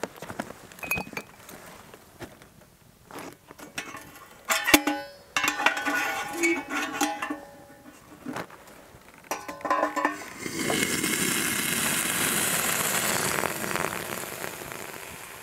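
Metal billy and its wire handle clinking and rattling at the campfire, with brief ringing tones. About ten seconds in, liquid is poured from the billy into a mug: a steady pouring rush lasting several seconds, fading near the end.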